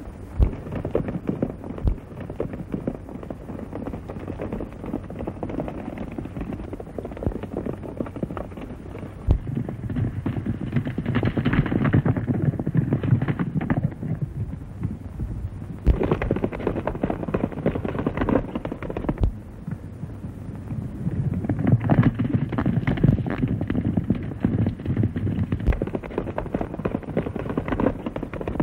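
Horses galloping, a fast run of hoofbeats that swells louder several times as the riders come close, with a few separate sharp cracks among them. The sound is thin and cut off above the middle range, as on an old film soundtrack.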